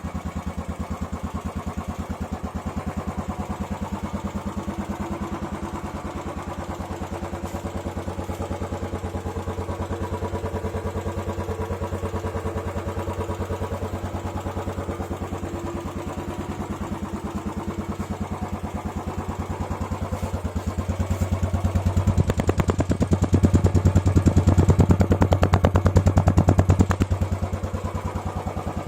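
Royal Enfield Classic 350 BS6's single-cylinder engine running on its stock exhaust, a steady even train of thumps. It grows louder for several seconds about two-thirds of the way through, then eases back near the end.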